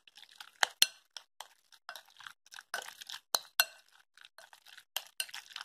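Metal spoon stirring diced raw chicken and cornstarch in a glass bowl: irregular clinks and scrapes of the spoon against the glass, the sharpest about a second in and again past three seconds.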